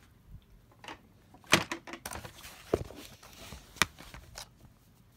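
A handful of sharp knocks and clicks, the loudest about one and a half seconds in, with a little rustling between them.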